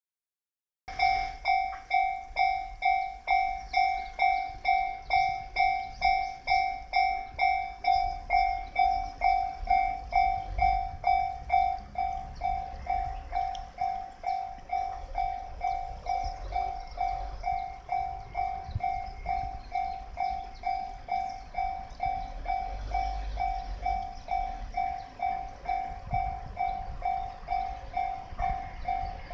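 Japanese railway level-crossing warning alarm ringing: an electronic bell-like ding repeating about twice a second, starting suddenly about a second in and a little quieter after about twelve seconds, with a low rumble underneath.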